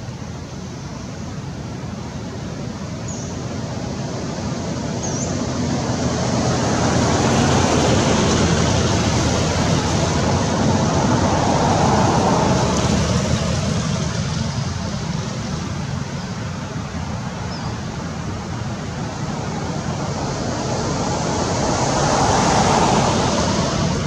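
Steady outdoor rushing noise that swells and fades twice, with a few faint high chirps in the first seconds.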